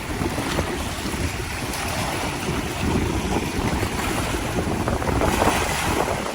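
Wind buffeting the microphone with an uneven low rumble, over a steady rushing noise.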